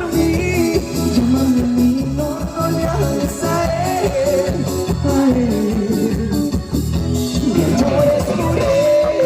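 Music: a song with a sung melody over a steady bass beat.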